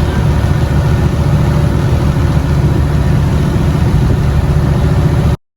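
Dive boat's engine running steadily, a loud low rumble that cuts off suddenly near the end.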